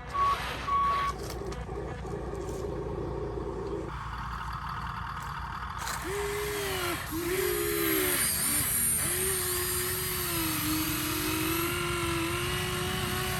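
Radio-controlled toy construction vehicle: two short reversing beeps at the start, then from about halfway on its electric motor whines, the pitch rising and falling over and over as the throttle changes.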